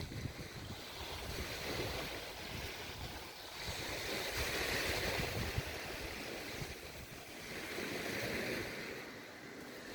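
Small sea waves washing onto the beach, the surf swelling and fading about every three to four seconds, with wind buffeting the microphone.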